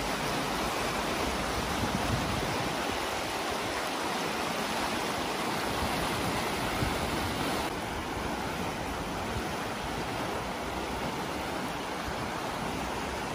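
Fast, shallow mountain river rushing over stones: a steady rush of water, a little quieter from about eight seconds in.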